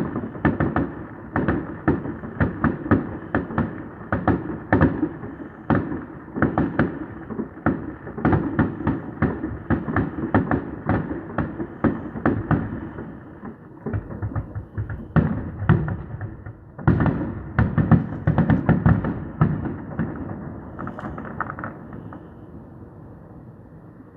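Fireworks display: a dense, irregular run of bangs going off several times a second, thinning out near the end into a fading rumble.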